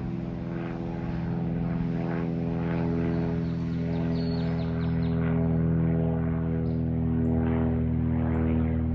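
Small propeller-driven general aviation airplane flying over, its piston engine and propeller making a steady drone that slowly grows louder.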